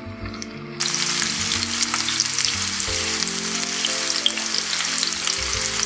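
Quartered artichoke pieces sizzling in hot olive oil in a frying pan over high heat, a dense hiss with many small pops. The sizzle jumps sharply louder about a second in.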